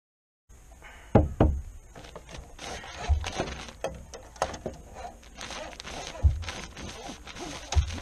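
Irregular wooden knocks and thumps, with rubbing and scraping between them, as fiberglass glow rods and pull string are worked through the wall framing. There are sharp knocks near the start, about a third of the way in, and near the end.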